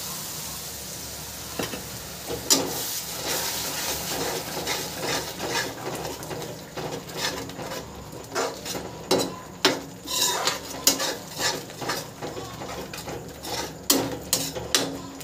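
Water poured into a metal kadhai of hot frying masala hisses steadily, then a perforated metal spatula stirs the masala, scraping and clinking irregularly against the pan.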